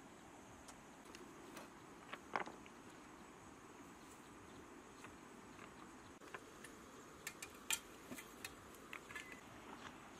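Scattered light clacks and clicks of rocks and dry sticks being handled and set in place, with a sharper knock about two seconds in and a run of clicks near the end. Under them is a faint, steady, high insect drone.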